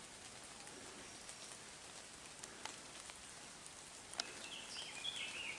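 Quiet woodland ambience: a faint steady hiss with scattered light ticks. From about four seconds in, a small songbird sings a few short, quick phrases.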